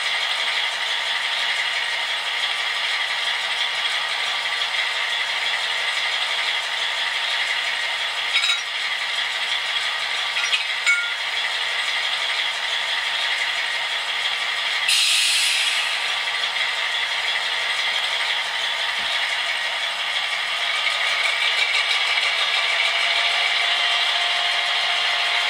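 Sound decoder of a Piko model PKP SU46 diesel locomotive playing its diesel engine running sound through the model's small speaker, a steady rattling note with almost no bass. A few clicks come around eight to eleven seconds in, and a short hiss about fifteen seconds in. Near the end the engine note grows louder with a steadier tone in it.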